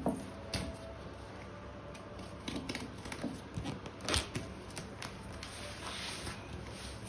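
A gift package being opened by hand: scattered rustles, taps and short scrapes of packaging, the loudest a little past four seconds in.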